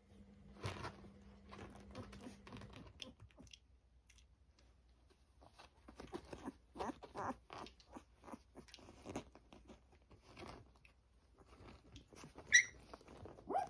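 Thirteen-day-old Dalmatian puppies nursing: irregular bursts of small wet suckling and smacking clicks. A puppy gives one short high squeak near the end.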